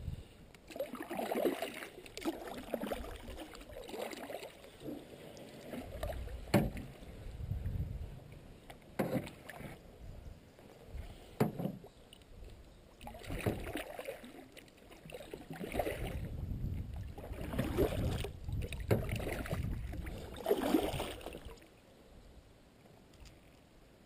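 Canoe paddle strokes in calm creek water: a splash and swish about every two to two and a half seconds, with a few sharp knocks mixed in. The strokes stop about two seconds before the end.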